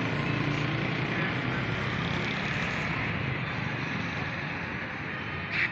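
Steady street traffic noise, with a vehicle engine's low hum fading out in the first second or two. A short high chirp comes near the end.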